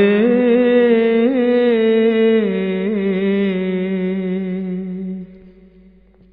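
A single voice chanting a slow melody, holding long notes with small ornamental turns, then fading out about five seconds in.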